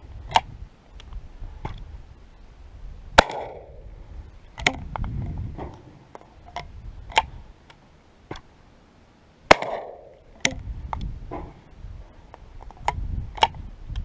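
Two shots from a single-shot 12-gauge shotgun firing water-soaked Sellier & Bellot buckshot shells, about six seconds apart, each with a short echo. Between and around the shots there are clicks and knocks as the action is opened, reloaded and closed.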